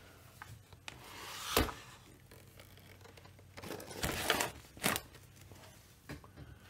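Handling noises: a swell of scraping or rustling that ends in a sharp click, then more rustling and another sharp click.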